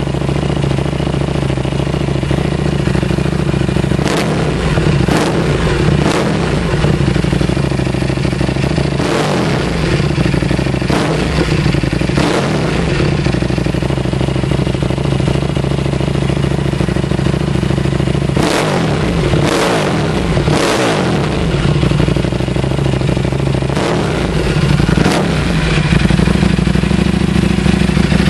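Buell 1125R's 72-degree V-twin idling through an FMF Apex slip-on exhaust and revved with quick throttle blips, each a fast rise and fall in pitch. The blips come in four groups of two or three, a few seconds apart, with steady idle between.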